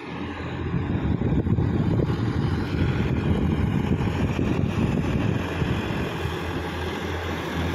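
Sonalika DI-50 RX tractor's diesel engine running steadily as it works through a flooded paddy field, under wind buffeting the microphone.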